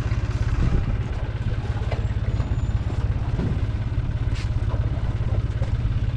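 An engine idling nearby, a steady low throb with a fast, even pulse.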